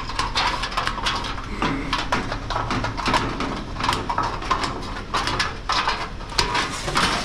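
Thin sheet-steel door skin being handled and worked by hand: irregular crinkling, scraping and clattering of the light-gauge metal.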